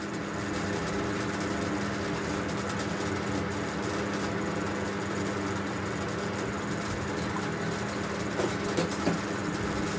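Water pouring and gurgling from a large plastic bottle into a funnel on a PVC suction pipe, over a steady mechanical hum.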